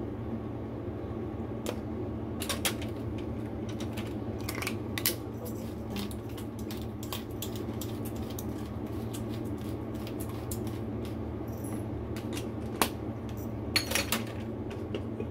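Scattered light clinks and taps of seasoning bottles and containers handled against a mixing bowl while dumpling filling is seasoned, with a few sharper knocks about five seconds in and again near the end. A steady low hum runs underneath.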